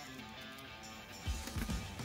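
Quiet instrumental background music, with low thuds coming in about halfway through.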